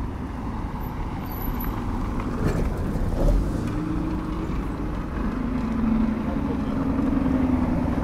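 Cars driving slowly past on a dirt road, engines running over a steady rumble of road noise; a steady low engine hum comes in about halfway through.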